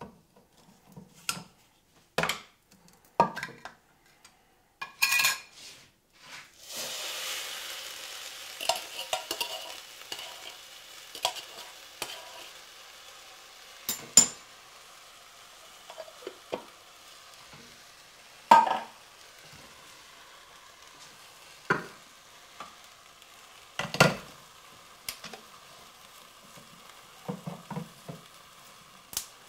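Handheld can opener clicking through a can of coconut milk. About six seconds in, the coconut milk goes into a hot pan of toasted quinoa and sizzles loudly, then settles to a faint steady sizzle. Scattered clanks of cans and utensils run through it, and a second can is being opened near the end.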